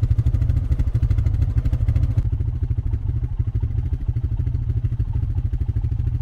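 ATV (quad) engine running steadily under way, with a rapid even firing pulse. About two seconds in the sound turns duller, losing its upper range.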